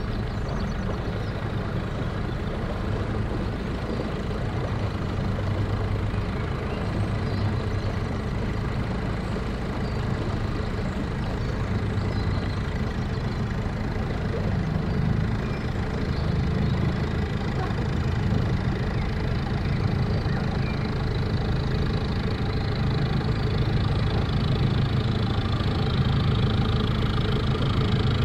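Narrowboat's diesel engine running steadily under way, a low even throb.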